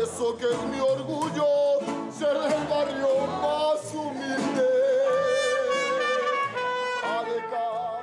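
Music with a melodic lead line sung or played with a wavering vibrato over an accompaniment.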